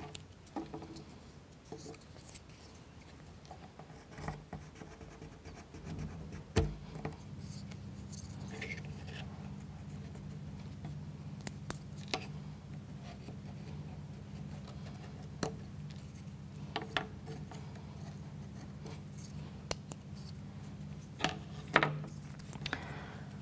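Wooden toothpicks being snipped off with a small cutter, and small plywood model parts being handled on a cutting mat: scattered sharp clicks and snips. A faint steady low hum sets in about six seconds in.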